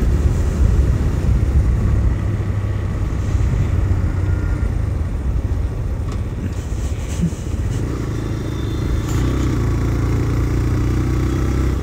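TVS Raider 125's single-cylinder engine running as the motorcycle is ridden along the road, under a heavy low rumble of wind and road noise on the handlebar-mounted phone. The engine note holds steadier in the last few seconds.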